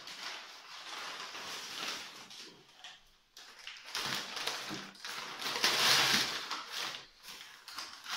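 Brown paper and newspaper wrapping rustling and crinkling as it is pulled open by hand, in irregular bursts, loudest about six seconds in.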